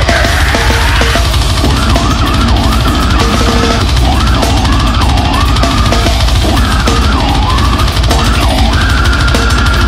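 A deathcore metal song playing loud and dense, with drums and a high line that bends up and down, then holds one steady note for about the last second.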